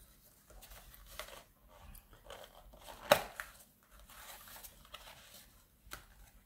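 Torn cardboard packaging of a Pokémon card multipack and the cards inside being handled: soft paper rustling and tearing, with one sharp click about three seconds in.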